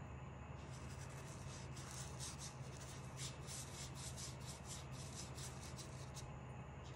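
Paintbrush scrubbing back and forth on watercolour paper in quick repeated strokes, about four a second, stopping shortly before the end. A low steady hum runs underneath.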